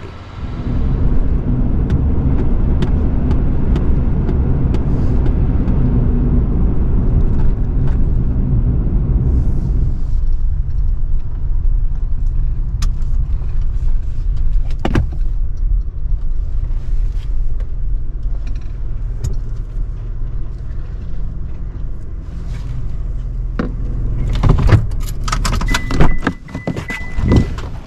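Vehicle cabin noise while driving: a loud low road rumble for about the first ten seconds, then a quieter, steadier engine and tyre hum. Near the end come a series of clicks and rattles and a short steady high tone.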